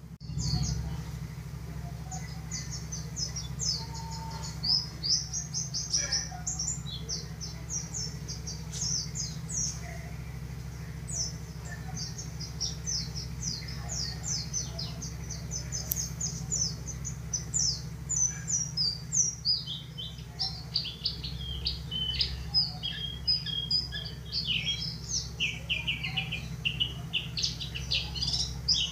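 Pleci dakun, a yellow-breasted white-eye, singing a fast, unbroken twittering song of high, rapid chirps. Over the last third the notes drop somewhat lower in pitch.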